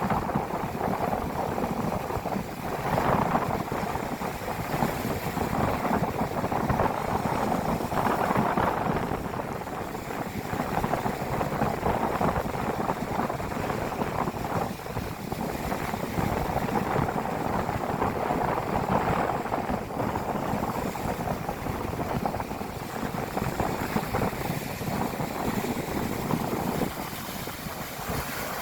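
Sea surf breaking on a beach in typhoon swell, a steady wash that swells and eases every few seconds, with wind buffeting the microphone.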